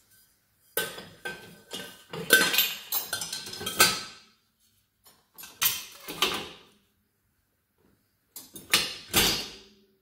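Stainless steel saucepans and lids clanking against each other and the dishwasher's wire rack as they are loaded into the bottom rack, in three spells of clatter with a brief metallic ring in the first.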